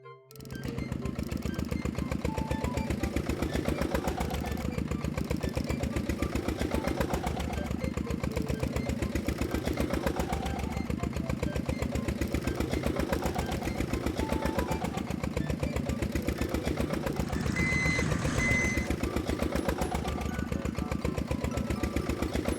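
Heavy-machine diesel engine sound effect for a bulldozer, running steadily with a fast, even chugging that starts suddenly at the outset. Two short high beeps sound about three-quarters of the way through.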